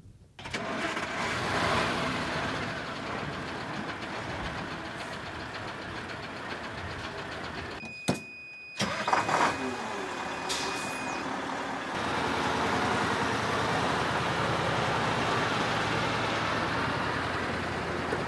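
Heavy military truck diesel engines running, cut into several shots, with short loud bursts about nine seconds in. A steady high beep sounds for a few seconds, and the engine noise turns heavier and steadier in the last third.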